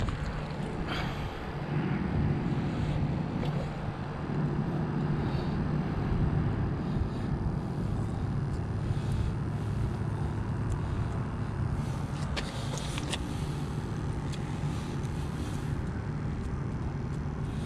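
A steady low mechanical drone with a constant hum, with a few sharp clicks about twelve and thirteen seconds in.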